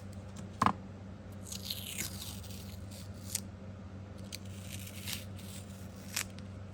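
Green painter's tape being handled and pressed against magnet plates, with crinkling, a short scrape, and a few light clicks. The sharpest click comes under a second in.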